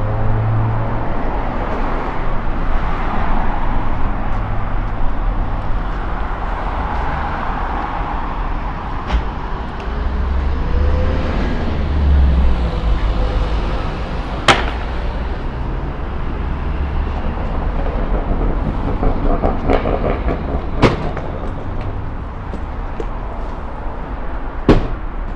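Busy city-street ambience: steady traffic noise, with a vehicle's deep rumble swelling and passing about ten to thirteen seconds in. Voices of passers-by, and three sharp clacks in the second half.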